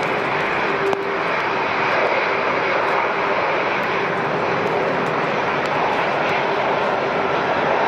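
Airliner jet engines running loud and steady, a dense rush of noise with a faint steady tone underneath.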